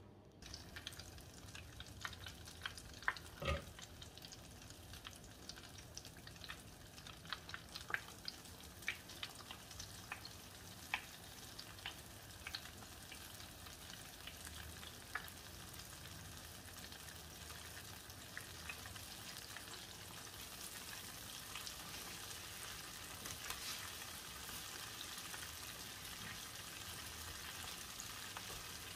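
Coated chicken pieces deep-frying in hot oil in a stainless steel saucepan: a steady sizzle with many sharp crackles and pops, growing into a denser, louder sizzle over the second half. A single louder knock comes a few seconds in.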